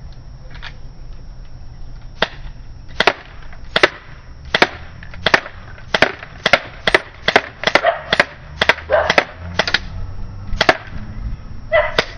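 Crosman C11 CO2 BB pistol firing a magazine of about fifteen shots, each a sharp pop, spaced roughly half a second to a second apart and quickest in the middle.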